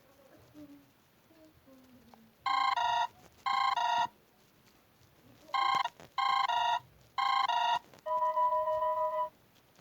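Xiaomi phone ringtone playing: short electronic trilling rings of two rapidly alternating tones, two rings, a pause, then three more, followed by a steady tone lasting about a second.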